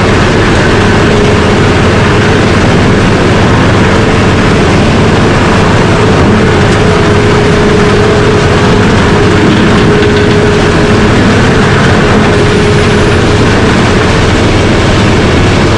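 Bandit 600-horsepower horizontal grinder running: a loud, unbroken mechanical din with a steady hum riding on top.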